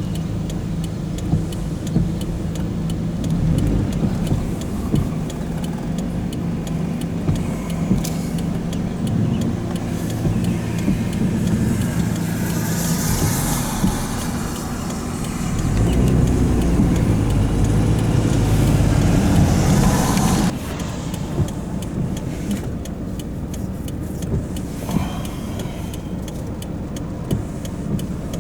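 Car running, with a steady low rumble and road or wind noise. The noise swells for a few seconds past the middle, then drops off suddenly about two-thirds of the way through, with scattered light clicks.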